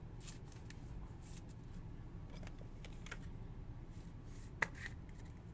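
Faint handling of trading cards: scattered light ticks and rustles as cards are slid and turned over, with one sharper click about four and a half seconds in.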